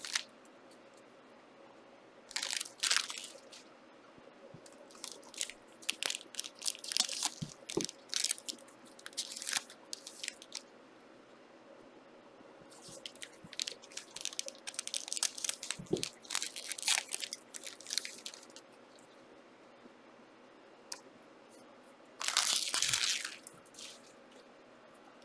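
Trading-card pack wrappers crinkling and tearing as packs are ripped open, in clusters of short crackles separated by pauses of a few seconds.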